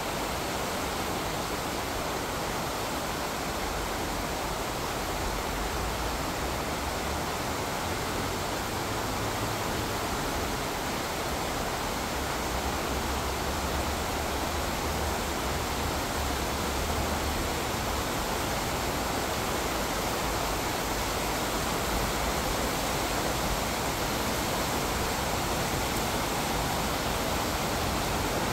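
Steady rush of a fast-flowing stream running beside the boardwalk, an even hiss of water with no let-up. A low rumble comes and goes beneath it.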